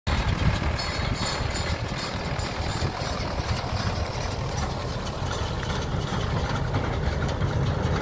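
Belarus tractor's diesel engine running steadily under load as it pulls a New Holland 644 round baler picking up hay, a continuous low rumble with the baler's mechanical clatter mixed in.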